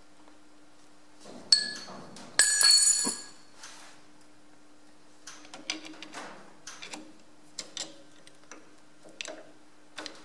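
Steel hand tools clinking on metal: a sharp ping about a second and a half in, then a louder ringing clang a second later, followed by light taps and scrapes of a steel tool working a split pin in a tractor's cast-iron top-link bracket.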